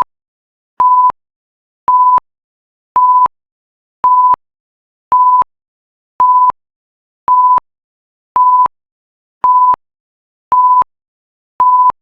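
Timer alarm: a single-pitched electronic beep repeating about once a second, each beep short, signalling that the countdown has run out.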